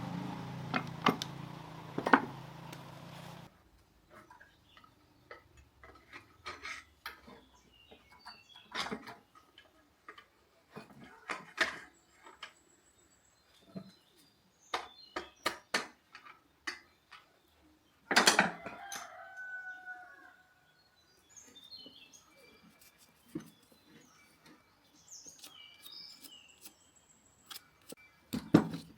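A steady hum cuts off about three seconds in, and scattered light clinks and taps of hand tools on small-engine metal parts follow. A rooster crows once about two-thirds of the way through.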